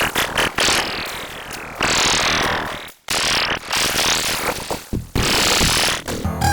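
Harsh, heavily effects-processed cartoon soundtrack audio with rapid stuttering cuts, a long falling sweep about a second in, and rising swoops. It drops out briefly about halfway through.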